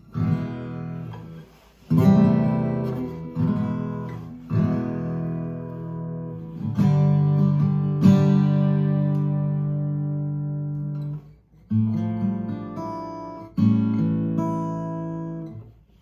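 Eastman E20 OM-TC acoustic guitar, heard through an iPhone microphone, played as a series of chords that are each left to ring. One chord sustains for about four seconds in the middle and is cut off sharply, and after a short gap the playing resumes with further chords.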